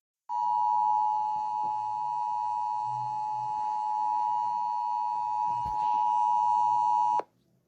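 Emergency Alert System attention signal: a steady, loud two-tone alert tone that sounds for about seven seconds and cuts off sharply. It introduces a broadcast severe thunderstorm warning.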